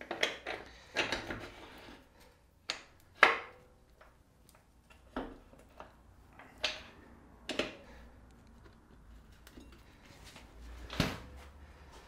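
Metal clunks and scrapes as a Triumph Tiger 800XC's rear axle is slid by hand through the swing arm, wheel spacers and hub. About eight separate sharp knocks, spread unevenly, the loudest a little after three seconds.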